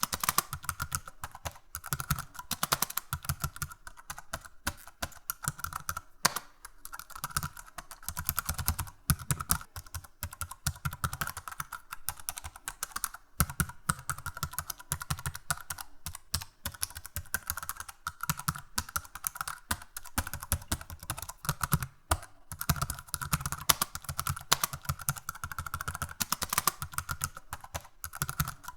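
Computer keyboard typing: rapid, irregular key clicks in continuous runs, with a few brief pauses.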